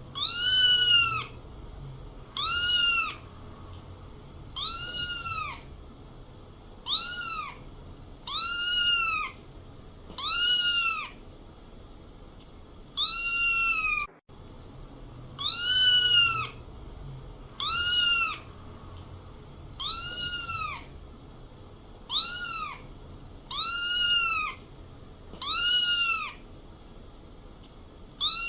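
Kitten meowing over and over, one high-pitched meow about every two seconds, each rising then falling in pitch.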